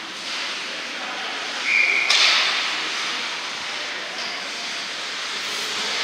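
Ice hockey game sounds in an indoor rink: skates scraping the ice, with spectators' voices in the background. Just before two seconds in there is a brief steady high tone, then a loud hissing scrape.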